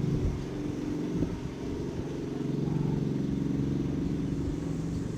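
A fishing boat's engine running steadily with a low, even hum that grows a little louder about halfway through.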